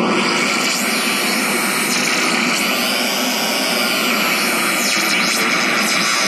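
Homemade noise synthesizer: a 4013 flip-flop samples a fast CD40106 square-wave oscillator at each tick of a slow one, and a TL071 bandpass filter shapes the result into a steady, loud hiss-like noise. Faint tones sweep up and down through it.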